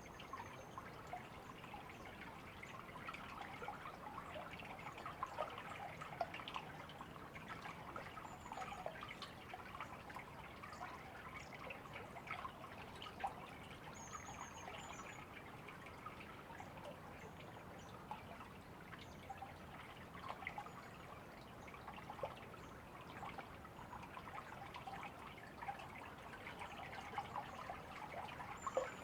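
River water trickling and splashing steadily, full of small drips and splashes, with faint high chirps now and then.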